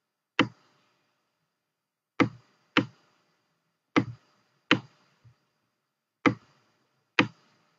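Computer mouse button clicking sharply seven times, several in pairs under a second apart, as elements are selected and dragged.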